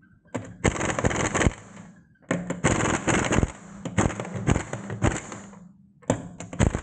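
Impact wrench hammering in repeated short bursts, each about a second long, with rapid blows over a low motor tone.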